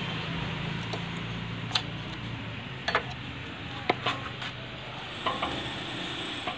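A spanner working an 8 mm bolt on a Hero Splendor Plus handlebar mount: about five sharp metal clicks, irregularly spaced, over a steady hiss.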